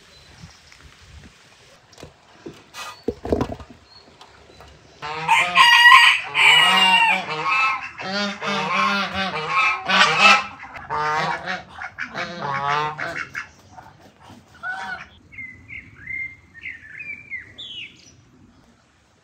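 Domestic fowl calling: loud runs of rapid, wavering honk-like calls start about a quarter of the way in and stop about two-thirds through. Faint high chirps follow near the end.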